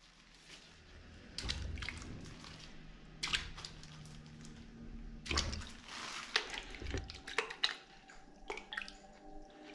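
A hand rinsing a clay-covered cloth in a plastic bucket of water, plunging it in and wringing it out: a string of splashes and drips, the sharpest about a second and a half, three, five, six and seven and a half seconds in.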